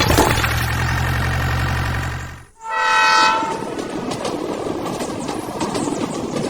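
Train rumbling along, then a train horn blows once for about a second, the loudest sound here, followed by the clatter of the train's wheels on the track.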